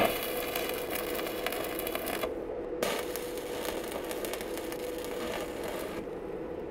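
Stick (arc) welding on a steel barrel: the electric arc crackles and sizzles while the electrode burns. It breaks off briefly a little after two seconds in and dies away about six seconds in, over a steady hum.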